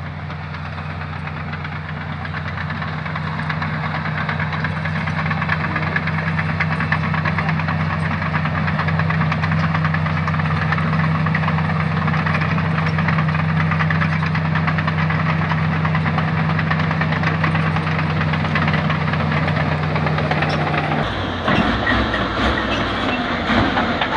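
LiuGong bulldozer working, its diesel engine running with a steady low hum that grows louder over the first several seconds. About twenty-one seconds in, the steady hum gives way to a rougher, choppier sound.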